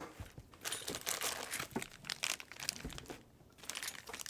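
Plastic packaging crinkling and rustling in irregular bursts as parts are handled and unwrapped, with a short quieter pause near the end.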